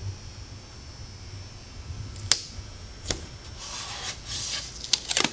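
Masking tape being laid and pressed down by hand on a fiberglass boat dash: sharp snaps of the tape about two and three seconds in and again in a quick cluster near the end, with a stretch of rubbing in between.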